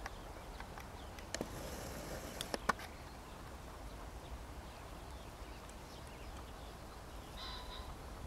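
Outdoor field recording with a steady low rumble. A few sharp clicks or knocks come about one and a half to three seconds in, and a brief higher-pitched sound comes near the end.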